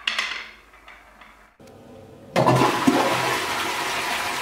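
A brief clack of a marble on a wooden marble run at the start. Then, after a short break, a toilet flushes from about halfway through, a loud steady rush of water.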